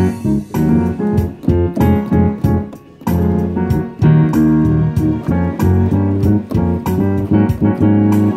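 Yamaha DGX-650 digital piano played in a piano voice: chords over low bass notes struck in a steady rhythm, with a brief pause about three seconds in.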